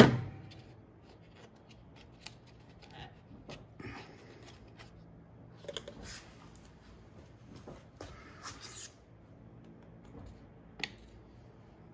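A Beckett AFG oil burner's hinged igniter knocks once as it is swung open, then small handling noises follow: rustling and light plastic-and-metal clicks as the old cad cell is worked loose from its holder, with one sharp click near the end.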